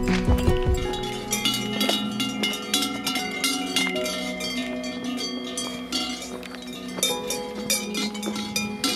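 Bells on the collars of grazing cows clanking and ringing irregularly as the cows move and feed, with a low rumble in the first second.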